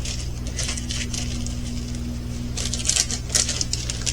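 Small plastic craft containers and bagged diamond-painting drills being handled: a run of light clicks and rattles that gets busier about two and a half seconds in. A steady low electrical hum runs beneath.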